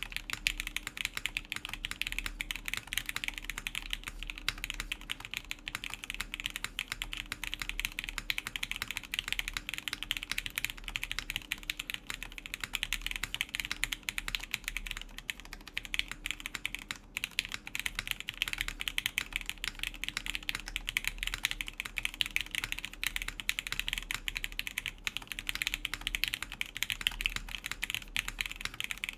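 Continuous fast typing on an Etar87 mechanical keyboard in top-mount configuration, with a full aluminium plate, lubed Gateron Yellow linear switches and JCS keycaps.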